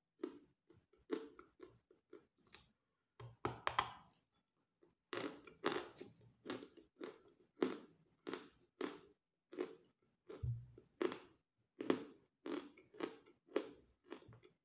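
Chewing a mouthful of Volokonovka natural chalk: a regular run of crunches, muffled and tender, about two to three a second.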